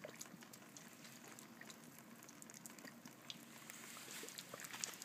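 Water boiling in the open outlet pipe of a solid-fuel boiler: faint bubbling and spitting crackle. The water in the boiler has come to the boil at about 100 degrees.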